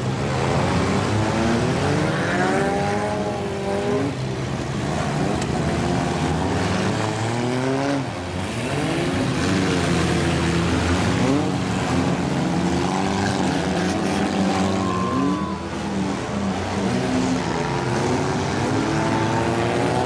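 Several compact demolition-derby cars' engines revving hard at once, their pitch sweeping up and down again and again as the cars accelerate, back up and ram each other on dirt.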